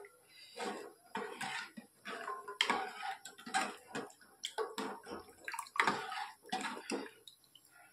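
A pot of dal boiling, the thick liquid bubbling and splashing in short irregular bursts, about one or two a second.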